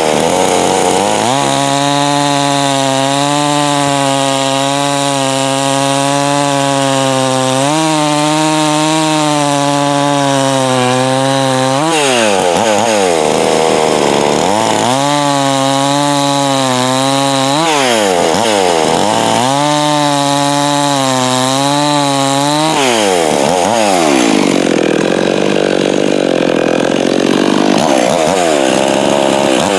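Stihl MS 391 two-stroke chainsaw, its piston and transfer ports reworked, running hard while cutting through a log of hard maple. The engine pitch holds steady in the cut, then sags and recovers several times as the chain loads and unloads, with a rougher, wavering stretch near the end.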